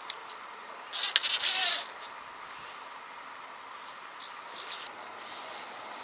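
Open-air floodplain ambience: a steady background hiss, a brief scraping rustle with a few sharp clicks about a second in, and two short high bird calls about four seconds in.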